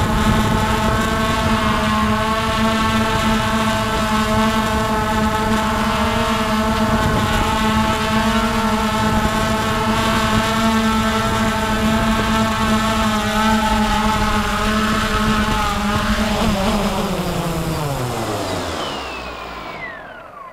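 Hubsan H109S X4 quadcopter's motors and propellers whining at a steady pitch while hovering, heard close from its onboard camera. About sixteen seconds in, the pitch falls and fades away as the quad lands and the motors spin down.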